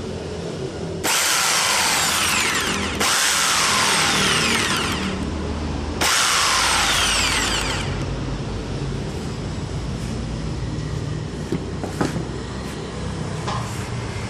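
Makita 4328 jigsaw motor run in three short bursts, each starting abruptly and falling in pitch as the motor winds down.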